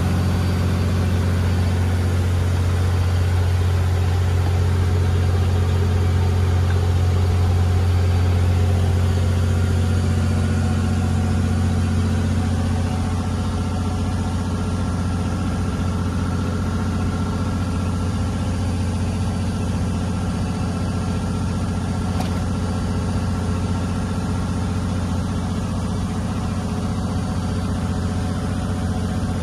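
Riverboat's engine running steadily under way, a low, even drone that drops a little in level about halfway through.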